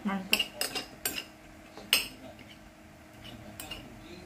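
Metal spoon clinking and scraping on a ceramic plate while eating rice. A quick run of clinks in the first second, a sharp one about two seconds in, and a few fainter taps near the end.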